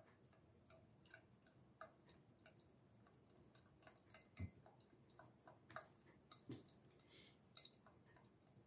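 Faint, irregular ticks of used cooking oil dripping through a muslin cloth into a stainless steel bowl, with two soft thumps about four and six and a half seconds in.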